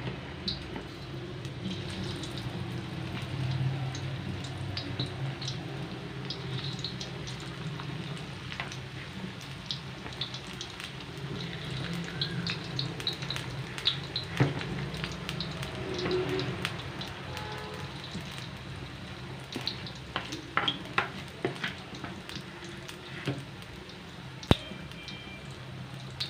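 Potato and onion lachha pakoras deep-frying in hot oil in a wok: steady sizzling with frequent small crackles and pops. One sharp click stands out near the end.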